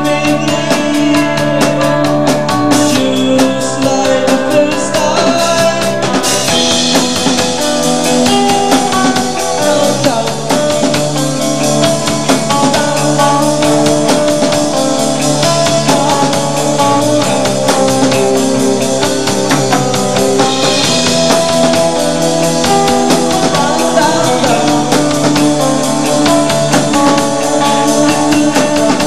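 Rock band playing live: a steady drum-kit beat under electric guitar, bass and keyboards.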